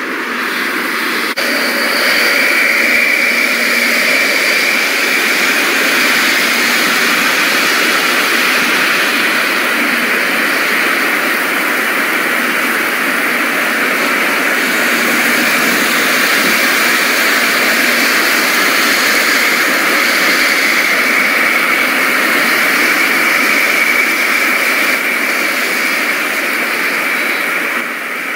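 Rain falling steadily on foliage, a constant even hiss.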